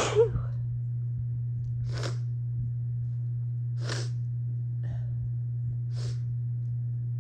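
A woman's sneeze right at the start, set off by dust, followed by short breaths about every two seconds as another sneeze builds. A steady low hum runs underneath.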